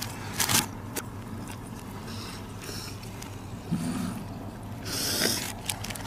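Paper burger wrapper rustling and crinkling in short bursts, the loudest about five seconds in, played in reverse over a steady low hum inside the car. A brief low grunt about four seconds in.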